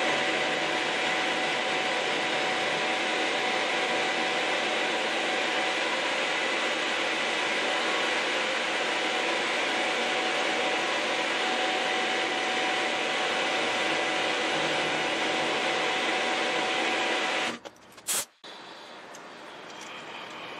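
Milling machine running, its end mill cutting a metal tool-holder block: a steady, even machine noise with a faint whine, which stops abruptly about 17 seconds in, followed by a brief sharp noise.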